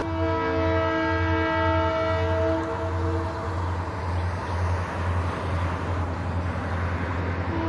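Diesel locomotive air horn blowing a chord of several tones for about three seconds, then sounding again near the end, over the steady low rumble of the diesel engines.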